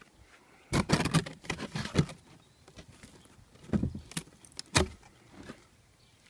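Handling noise: irregular bursts of rubbing and scraping against the camera, in a cluster about a second in, another around four seconds in, and a last short one near the end.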